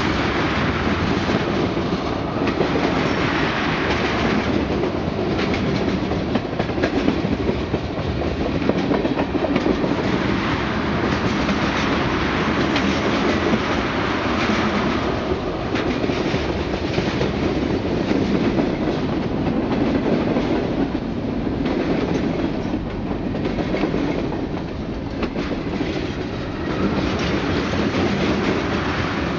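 Freight train of tank cars passing close by: a steady, loud rumble and clatter of steel wheels running on the rails, with no letup.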